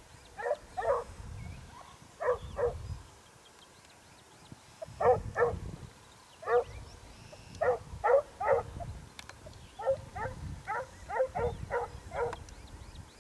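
Hunting dogs baying in the distance, in short runs of two to four barks with a quiet spell of a couple of seconds partway through. They are giving tongue while trailing a hare.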